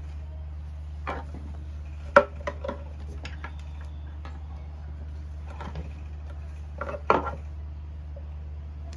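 A fabric baby carrier being handled: rustling cloth, and its plastic buckles and straps clacking against a wooden bench in several sharp knocks, loudest about two seconds in and again about seven seconds in. A steady low hum runs underneath.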